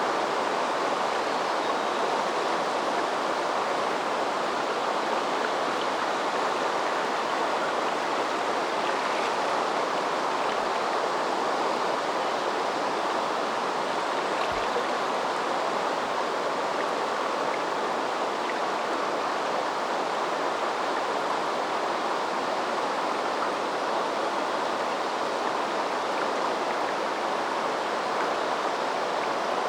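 Shallow river water rushing and burbling over stones in a steady, even flow.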